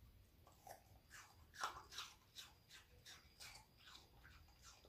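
Welsh Corgi puppy chewing pieces of apple: a quick series of quiet, crisp crunches, the loudest about a second and a half in.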